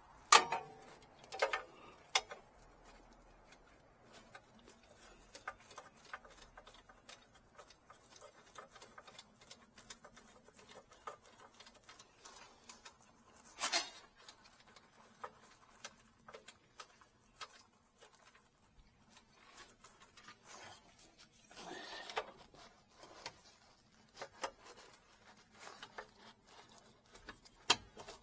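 Hand socket wrench ratcheting in short runs of small rapid clicks, with a few louder sharp metal knocks from the tools.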